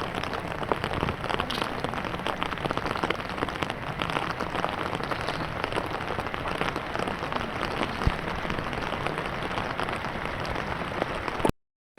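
Steady rain falling, a dense patter of many small drops, with one soft knock about eight seconds in.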